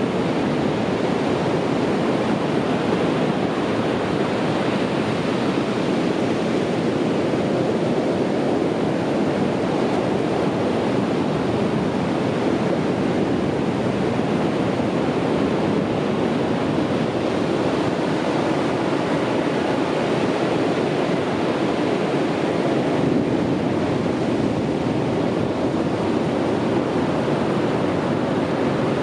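Sea waves washing on a beach: a steady, unbroken rush of surf without separate crashes.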